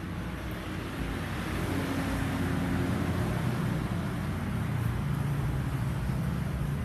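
Motor vehicle engine running with a steady rushing road and wind noise and a low hum that grows slightly louder about a second in.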